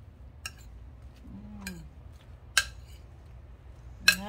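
A utensil clinking against a glass bowl as chopped mango salsa is stirred: three sharp clinks, spaced about a second and a half to two seconds apart. A short, low voice-like sound comes in between.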